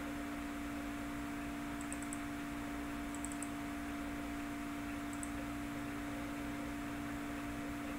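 Steady electrical hum and hiss, with a few faint computer mouse clicks in small groups about two, three and five seconds in.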